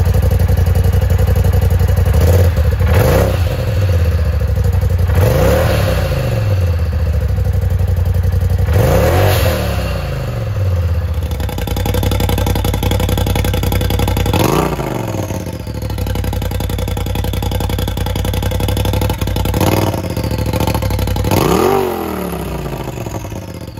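Polaris RZR Turbo's turbocharged twin-cylinder engine idling and revved in short blips, three times through the stock muffler. About halfway through the exhaust is switched to the Trinity side-piece header's electronic cutout, and it is revved three more times through the open cutout.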